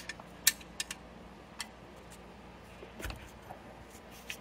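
A wrench working loose an oil pan drain plug: a handful of sharp, irregular metallic clicks and clinks, with a small cluster about three seconds in.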